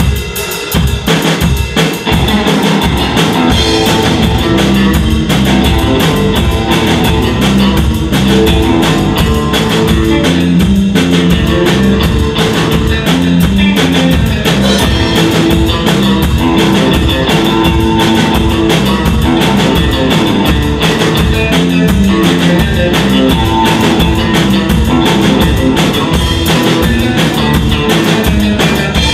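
A three-piece surf rock band playing live: electric guitar and bass over a drum kit, with bass drum and snare driving a steady beat.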